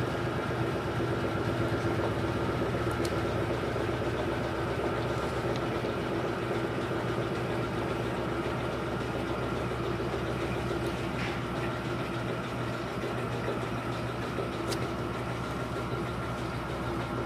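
LT13B washing machine running through its wash cycle: a steady motor hum with constant tones, and a few faint ticks.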